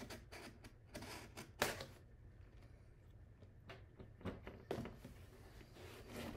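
A mystery jersey box being handled, tipped over and set flat on a table: irregular knocks, scrapes and rustles. The loudest is a sharp knock about one and a half seconds in, with softer swishes later as the box is laid down.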